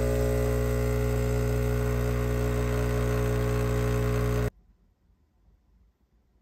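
Espresso machine's pump buzzing steadily as a shot pours into a mug, cutting off suddenly about four and a half seconds in.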